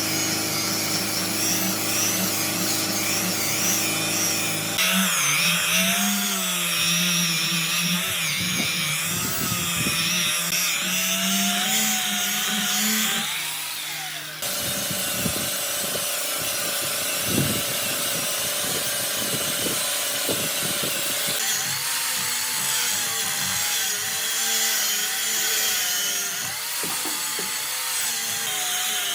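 Electric power tools working wood, with a motor hum whose pitch wavers up and down. The sound changes abruptly three times, from one tool sound to another.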